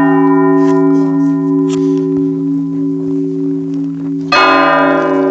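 Church bells ringing: a chord of bells struck just before rings on and slowly fades over the deep hum of the low bells, and a second chord is struck about four seconds in.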